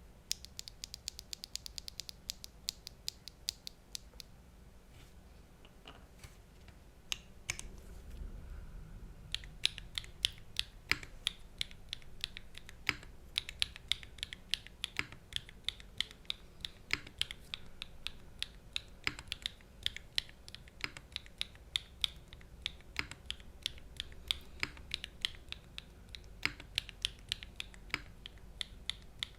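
Typing on a mechanical keyboard: a SEBAS Prototype with an aluminium plate and no foam, fitted with stock BSUN TaiChi linear switches, TX stabilisers and GMK keycaps. A quick run of keystrokes at first, then a few scattered strokes, then steady typing at about three to four keys a second from about a third of the way in.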